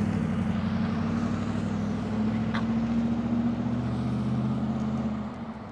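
A motor vehicle's engine running steadily with a low hum, dropping away a little after five seconds in.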